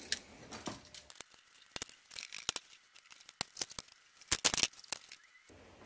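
Scattered sharp metal clicks and clinks of a valve spring compressor and valve parts being worked on a Slant Six cylinder head as a valve is taken out, the loudest a quick cluster about four and a half seconds in.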